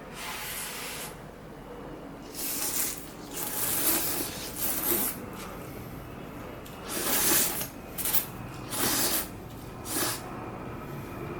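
A person slurping instant ramen noodles: a series of airy, hissing slurps, some drawn out for about a second and some short, with quieter chewing gaps between them.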